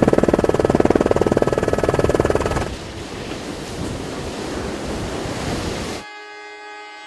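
Helicopter rotor and engine noise, a loud fast even pulse over a rushing haze. About three seconds in it gives way to the rush of surf and wind. Near the end it cuts to a ship's horn sounding a steady chord of several tones.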